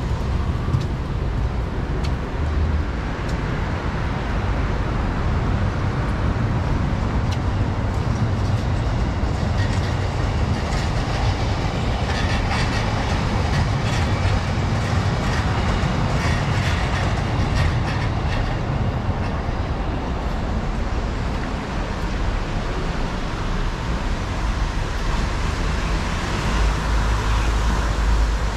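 Electric commuter train running along the tracks, a steady rumble with a run of wheel clicks over the rail joints in the middle.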